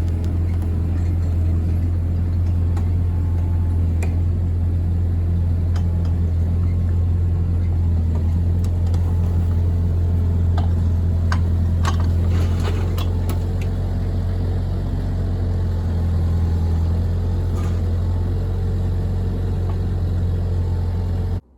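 An engine running steadily at a constant speed, with scattered light clanks and knocks over it. It cuts off abruptly near the end.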